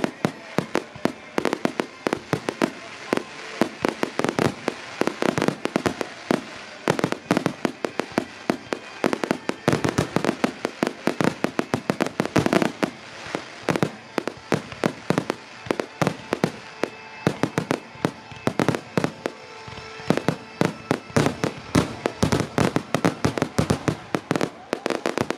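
Fireworks finale: aerial shells bursting in a dense, continuous barrage, several loud bangs a second.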